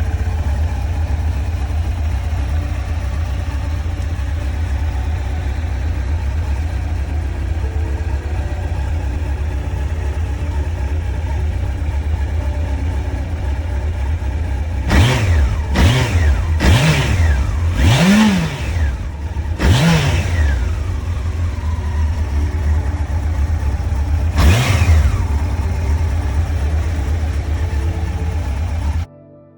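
1993 Honda CBR900RR's inline-four engine idling steadily, then blipped about six times in its second half, each rev rising and dropping back to idle. The biggest rev comes around the middle of the run of blips. The sound cuts off suddenly near the end.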